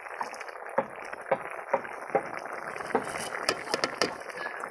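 Curry boiling in a large metal kadai over a wood fire: a steady bubbling hiss with scattered pops. A metal ladle knocks against the pan a few times near the end.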